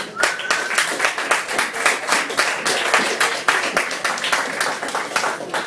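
Audience applauding: many hands clapping densely, tailing off near the end.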